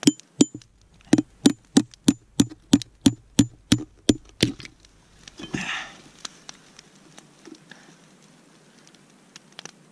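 A hatchet tapping the spine of a knife to baton-split a frozen, knotty Siberian pine stick: a quick, even run of about a dozen sharp knocks, about three a second, that stops about four and a half seconds in.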